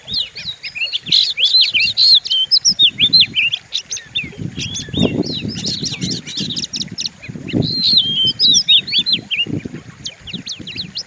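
Oriental magpie-robin (kacer) singing a fast, loud, harsh run of sweeping chirps and whistles, used as a lure song to provoke other kacer. Low fluttering thumps come and go under the song, loudest in the middle.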